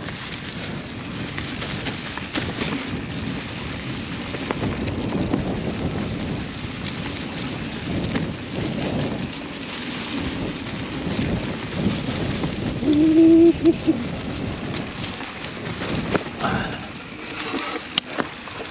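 Mountain bike rolling along a dirt trail: a steady rush of tyre and wind noise on the helmet or handlebar camera's microphone, with small knocks and rattles from the bike over the ground. A short steady humming tone sounds a little past two-thirds of the way through.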